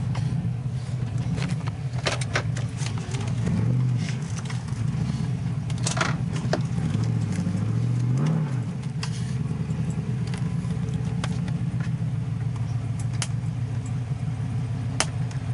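GMC Sierra pickup's engine, fitted with an aftermarket cam, running loud through OBX headers and a Dynomax Bullet muffler with the exhaust cutout open, heard from inside the cab while driving. The revs rise and fall briefly about 4 seconds in and again about 8 seconds in, and a few sharp clicks sound over it.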